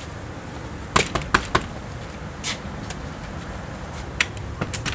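Knocking on a house's front door: four quick raps about a second in, followed by a few lighter clicks near the end.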